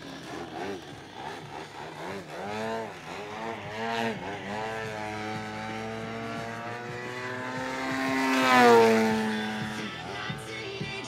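DLE130 twin-cylinder two-stroke gasoline engine of a large aerobatic RC plane in flight, its pitch swinging up and down with quick throttle changes, then holding steady. About eight seconds in it swells to its loudest in a close pass, the pitch dropping as it goes by.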